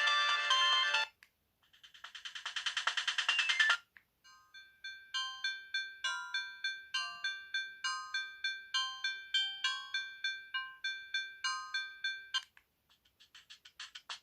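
Ringtones of a BenQ Siemens AL21 mobile phone previewed one after another through its speaker: each short electronic melody cuts off suddenly, a brief gap follows, and the next begins. One swells in loudness before cutting off, and the longest is a tinkling tune of quick repeated notes.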